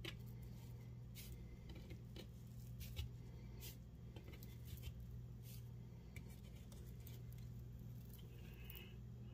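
Faint handling sounds of bacon-wrapped manicotti shells being rolled over on a metal pan: a few soft ticks and light taps, over a steady low hum.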